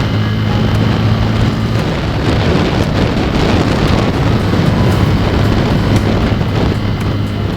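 Motorcycle engine running steadily while riding, with heavy wind noise buffeting the microphone.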